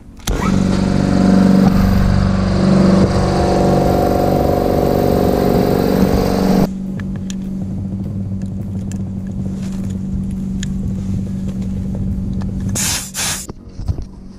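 A motor-driven machine switched on, starting suddenly and running with a steady hum. About six and a half seconds in it drops abruptly to a quieter, steady running, with a couple of short hissing bursts near the end.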